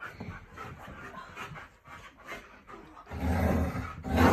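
Alaskan malamutes panting and sniffing, then about three seconds in a loud, low, rough growl that carries on.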